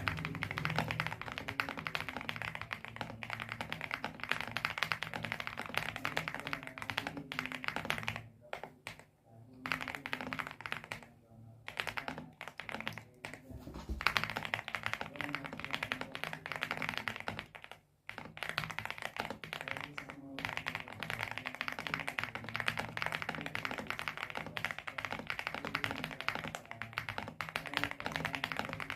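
Fast, steady typing on a lubed Xera87 mechanical keyboard with Outemu Jade White switches, a dense run of thocky key presses with short pauses about eight, eleven and eighteen seconds in.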